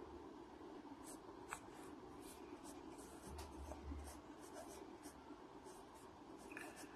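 Pen writing on a ruled spiral-notebook page: faint, quick scratches of short strokes.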